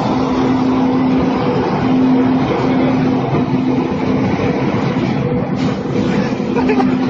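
Water jetting from a burst water line beside a railway track, a loud steady rush, with a low steady hum that breaks off and resumes several times.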